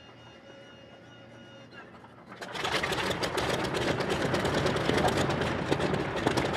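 Focke-Wulf Fw 190's BMW 801 radial engine being started: a faint steady whine, then about two and a half seconds in the engine catches and runs loud with rapid, uneven firing.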